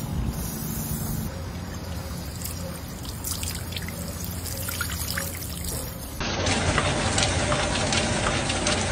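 Water trickling and running over solar panels being washed, with a steady low hum underneath. About six seconds in, this cuts off abruptly and a louder hissing noise with scattered clicks takes over.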